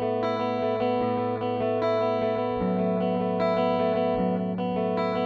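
Epiphone SG G-400 electric guitar played through its neck pickup on a clean sound with no effects: ringing chords that change every second or so.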